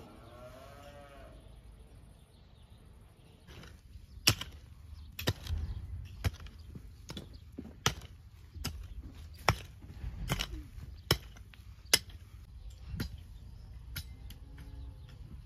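A farm animal bleats once near the start and again faintly near the end. In between comes a run of about a dozen sharp knocks, roughly one a second, which are the loudest sounds.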